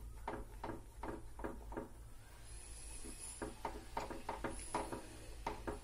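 Silicone whisk beating a thick cornflour halwa mixture with ghee in a nonstick pan: soft, rhythmic strokes, about three a second, thinning out briefly near the middle.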